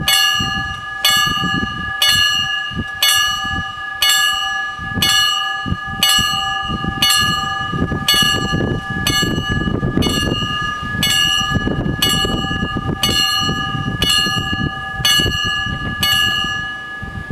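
Danish level-crossing warning bells striking about once a second, each strike ringing on in steady tones, to warn that a train is coming and the barriers are closing. The strikes stop near the end, once the barriers are down, and the ringing dies away.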